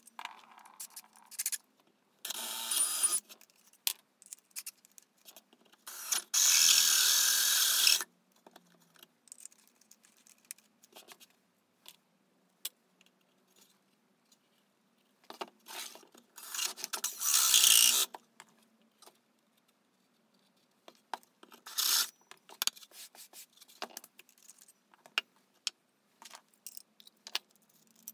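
A hole saw on a cordless drill cutting a round entrance hole through a pallet-wood panel, in four bursts of rough, noisy cutting, the longest and loudest about six seconds in. Small knocks and clicks of tools and wood being handled come between the bursts.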